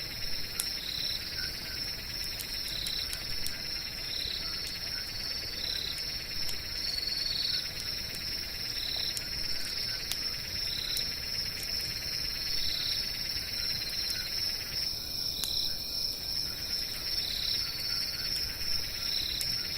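Crickets trilling steadily, with short chirps repeating about every second and a half, over scattered pops and crackles of a campfire.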